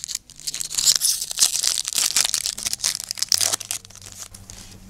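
Foil wrapper of a Yu-Gi-Oh booster pack being torn open and crinkled by hand: a dense crackling rustle with sharp clicks for about three seconds, loudest in the first half and fading out before the end.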